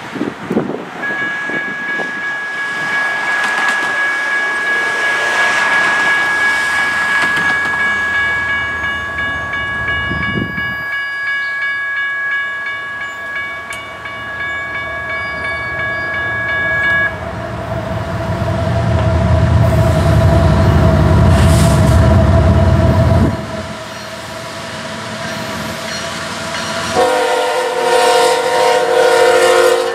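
Railroad grade-crossing bell ringing steadily for about the first sixteen seconds while the gates come down. Then the low rumble of an approaching BNSF freight train's diesel locomotive, which stops abruptly after a few seconds. About three seconds before the end the locomotive's multi-note air horn sounds loudly.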